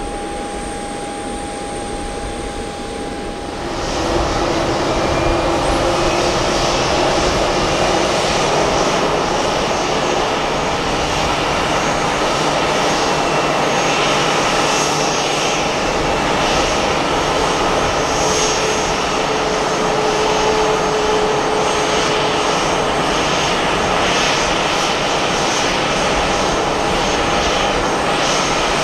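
Boeing C-40C (737-700) jet's CFM56 turbofan engines running as it taxies, a steady rushing noise with a high whine. In the first few seconds, before a sudden jump in level, the parked jet gives a quieter steady whine.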